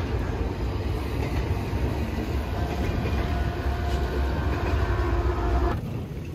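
CSX double-stack container freight train passing, with its diesel locomotive and cars making a steady, heavy low rumble that cuts off sharply about six seconds in.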